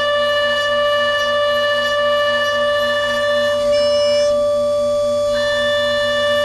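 DATRON neo+ CNC milling machine's high-speed spindle running with a steady high whine. Its upper overtones change for a second or two around the middle.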